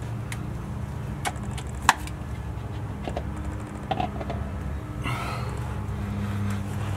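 A few sharp metallic clicks and knocks from hand work on the underside of a car at the power steering rack, the loudest about two seconds in, over a steady low hum.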